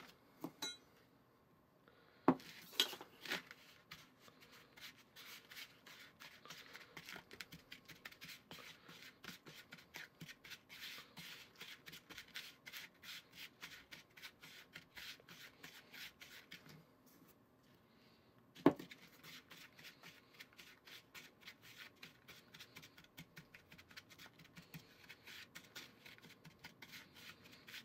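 Rubber spatula scraping and cutting through a dry, crumbly flour-and-butter dough in a small plastic bowl, in quick repeated strokes with two short pauses. Two sharper knocks stand out, one about two seconds in and a louder one just past the middle.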